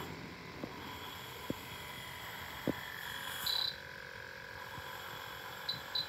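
Electronic refrigerant leak detector beeping as its probe picks up R-134a gas at a refrigerant cylinder's valve: one short high beep about halfway through, then quick high beeps starting just before the end, over a faint steady hum.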